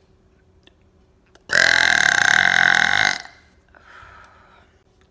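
A woman's single long, loud burp, lasting about a second and a half and starting about a second and a half in, followed by a much fainter short sound.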